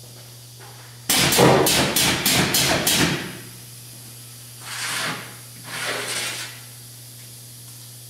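A quick run of about seven metallic clanks over two seconds as thin sheet steel is handled at a sheet-metal brake, followed by two scraping slides as the sheet is fed into the brake. A steady low hum sits underneath.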